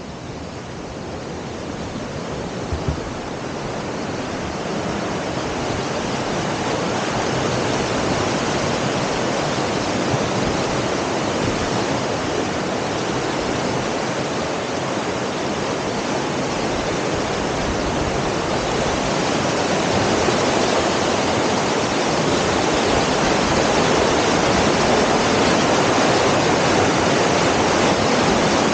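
Rushing water of Tarawera Falls, a steady even rush that grows gradually louder over the first twenty seconds or so, then holds.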